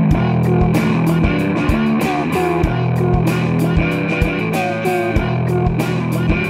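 Instrumental rock music: a bending guitar melody over sustained bass notes and a steady drum beat, with a kick drum about every 0.6 seconds and frequent cymbal strokes.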